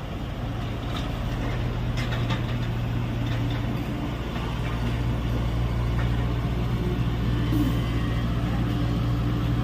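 Excavator's diesel engine running steadily under work, slowly getting a little louder, with a few faint clanks.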